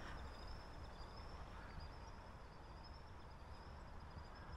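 Faint squeaky calls of an unidentified bird that sounds like a squeaky wheel, over a thin, steady high whine that wavers slightly in pitch.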